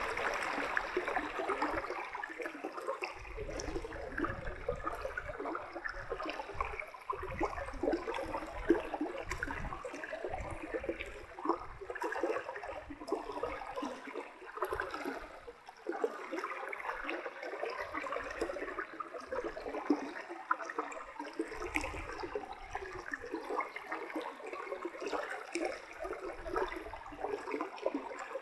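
Shallow forest stream running and gurgling past a low concrete bridge: a steady babble of water, with intermittent low rumbles underneath.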